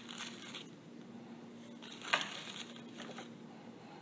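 Hands handling loose needle roller bearings, fitting them into a connecting rod's small end around a socket: a short rustle at the start, one sharp click about two seconds in, then a few faint ticks.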